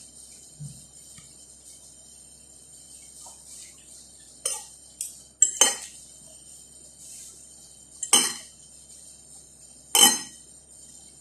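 Eating utensils clinking and scraping against a plate: about five sharp clinks spread over several seconds, the loudest in the middle and near the end.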